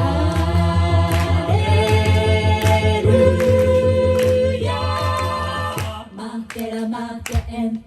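A cappella vocal group singing wordless held chords over a pulsing bass voice, the chord changing a few times; about six seconds in the sound thins out and gets quieter.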